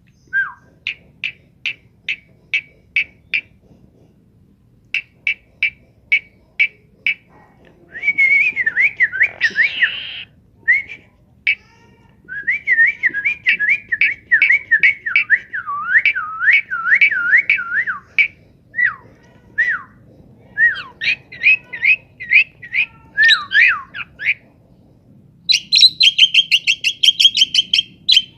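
A pet talking bird whistling. It gives a series of short, separate whistled notes, then long warbling runs that wobble up and down in pitch, and a fast burst of chirps near the end.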